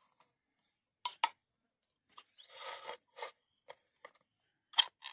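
Ring-pull lid on a metal tin of wet cat food being opened by hand: two sharp clicks about a second in as the tab is lifted, a short scraping tear of the lid, then more clicks, the loudest near the end.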